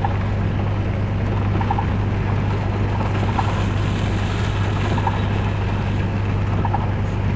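Vehicle driving in heavy rain: a steady low engine drone under a dense wash of rain and tyre noise, with a faint short tick about every second and a half.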